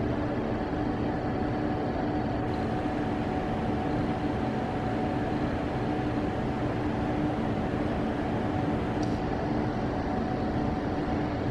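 Steady rumbling drone of an underground MRT station platform, with a constant low hum and no rise or fall.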